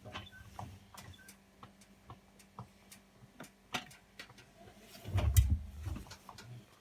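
Hotpoint washing machine at the start of a wool 40 programme: a run of irregular light clicks, then a louder low rumble with more clicks about five seconds in.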